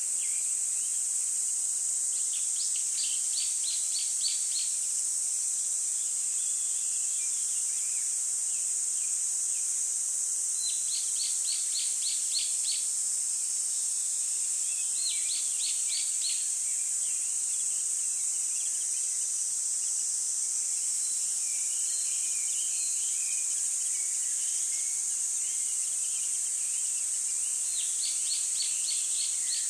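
Bird song: short trills of rapid repeated chirps, four times, with softer twittering in between, over a steady high-pitched hiss.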